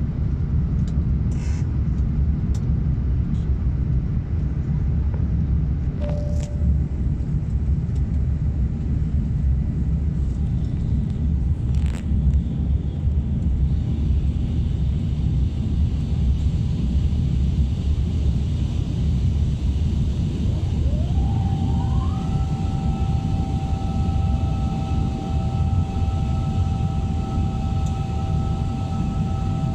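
Steady low rumble of an airliner's cabin in flight during descent. About two-thirds of the way in, a mechanical whine rises in pitch and then holds steady at two pitches, sliding down again near the end; a few light clicks come in the first half.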